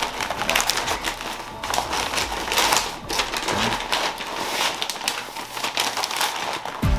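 Butcher paper, damp from an apple cider vinegar spritz, crinkling and rustling in irregular crackles as it is folded and tucked around a brisket. Music comes in right at the end.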